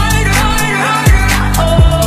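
Background pop/R&B song: a sung vocal over a beat of deep, pitch-dropping bass-drum hits.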